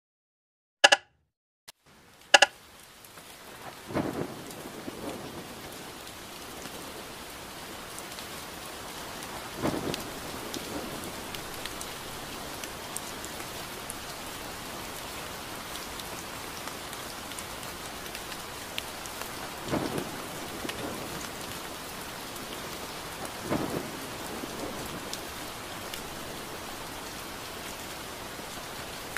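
Three sharp clicks, then steady rainfall fading in, with low rumbles of thunder every several seconds.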